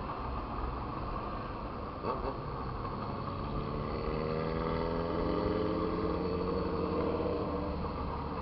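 Motorcycle engine pulling under way, its pitch rising gradually for a few seconds and then holding steady, over the low rumble of wind on the microphone.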